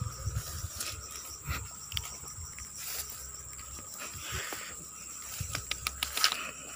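Footsteps and brushing through tall grass and undergrowth, with irregular rustles and snaps, over a steady high drone of insects.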